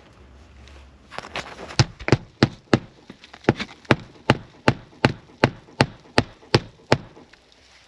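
Hammer driving roofing nails into asphalt shingles: a few light taps, then a steady run of about fifteen sharp strikes at roughly three a second, stopping shortly before the end.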